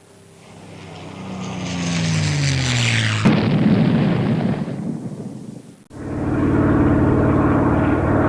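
Propeller aircraft swelling in as it approaches, its engine pitch falling, then a sudden bomb explosion about three seconds in that rumbles and dies away. After an abrupt cut near six seconds, a loud steady propeller-plane engine drone.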